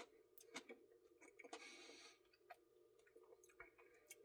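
Near silence with faint scattered clicks and quiet chewing of ice cream, plus a brief soft hiss about a second and a half in.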